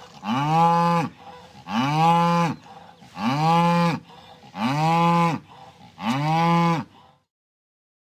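Cow mooing in distress: five short moos about a second and a half apart, each rising and then falling in pitch, before the calls stop near the end.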